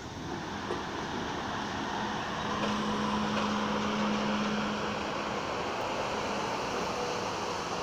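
R42 New York City subway train rolling past on an elevated track: a steady rumble of steel wheels on the rails, with a low steady hum over it for several seconds in the middle.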